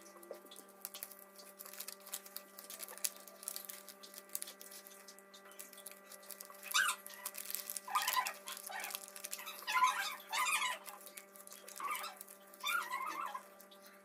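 Paper crackling and rustling as it is handled and folded. From about seven seconds in come several short, high-pitched squeaky sounds, louder than the paper.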